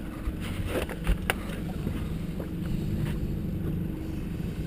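Boat motor running steadily at trolling speed, with light wind on the microphone. A little over a second in come two sharp knocks as the landing net with a walleye is brought aboard.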